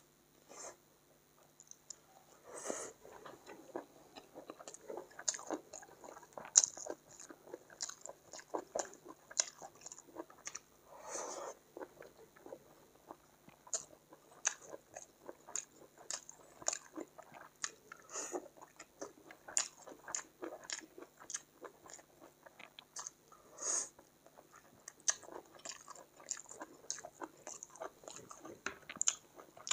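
Close-miked chewing and mouth sounds of a person eating chicken curry and rice by hand: wet smacks and many short, sharp clicks at an uneven pace.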